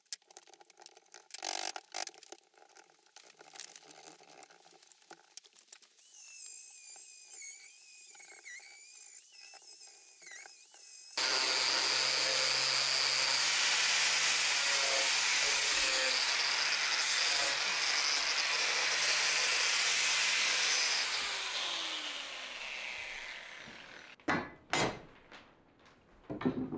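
Angle grinder fitted with a wood-shaping disc cutting into a timber beam: it starts suddenly partway through, runs loud and steady for about ten seconds, then winds down and spins to a stop. Before it come scattered sharp knocks from a hammer striking chisel and wood, clearing waste between saw kerfs in the joint, and a few more knocks follow near the end.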